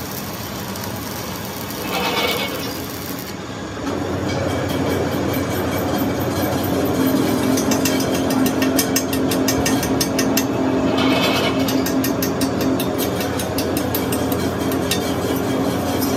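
Arc welding crackling for the first few seconds, then a steel rod rapidly tapping and scraping slag off fresh weld beads on a steel wheel rim: a fast run of metallic clicks over a steady low hum.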